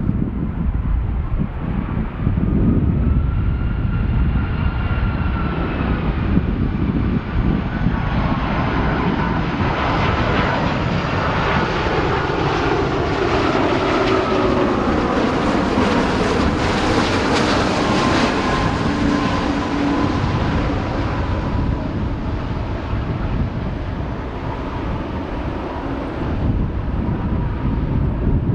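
Airbus A330-243F freighter's Rolls-Royce Trent 700 turbofans as the jet passes low overhead. The roar builds to a peak about two-thirds of the way through and then fades, while the engine whine slides down in pitch, with low wind rumble on the microphone throughout.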